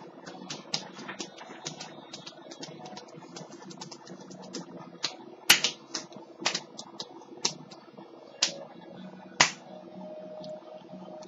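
Sharp hand noises: a run of light quick clicks, then about five loud smacks roughly a second apart from about halfway, over a faint steady hum.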